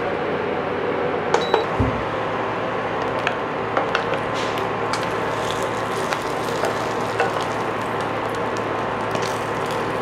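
Egg sizzling in a square nonstick pan on an induction cooktop, with a wooden spoon and a ladle scraping and tapping against the pan as the omelette is rolled. A steady hum runs under it, and the clearest taps come about a second and a half in.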